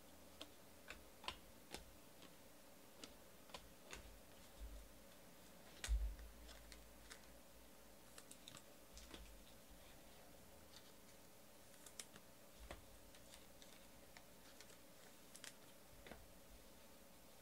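Faint, scattered clicks and flicks of baseball trading cards being sorted through by hand, with a soft thump about six seconds in as cards are set down on the table.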